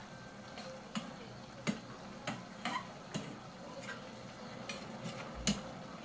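Long metal spatula clicking and knocking against the inside of a stainless steel pot as pork pieces are stirred, about seven irregular taps, over a faint steady sizzle.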